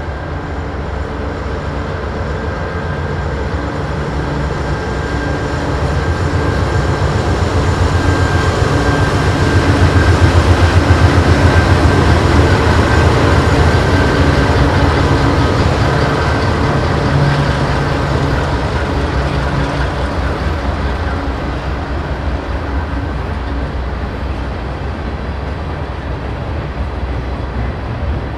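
Canadian Pacific GE AC4400CWM diesel-electric locomotives passing by, their engines running with a steady low drone. The drone swells to its loudest about ten seconds in and fades as the locomotives move away.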